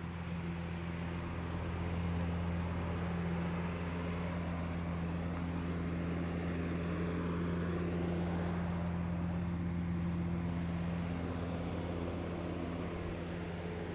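A steady low machine hum, even in pitch and level throughout.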